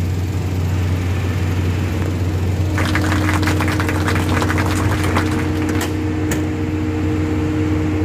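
Car engine idling steadily. For a few seconds in the middle, a run of rapid clicks and rattles comes over it.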